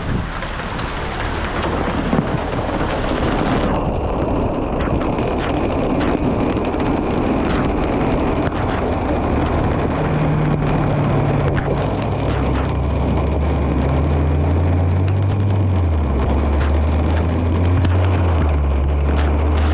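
Hail pelting down in a dense, steady clatter of stones striking. A low, steady rumble joins it from about halfway.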